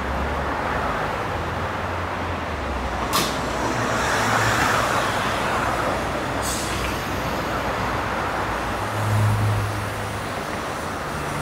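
Electric commuter train standing at a station platform: steady running hum and noise, with two short hisses of compressed air a few seconds apart.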